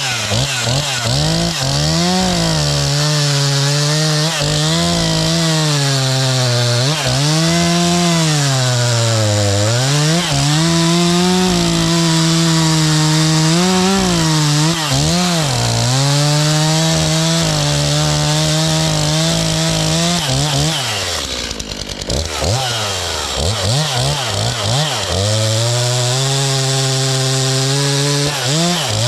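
Stihl MS 251 45cc two-stroke chainsaw cutting ash wood at high revs. The engine pitch keeps sagging and recovering as the chain bites. About two-thirds through, the revs drop low for a moment, then climb back up to cutting speed.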